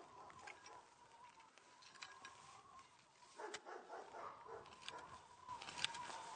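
Faint boot footsteps on grass and dry leaves, heard as scattered soft knocks and rustles, over a faint steady tone.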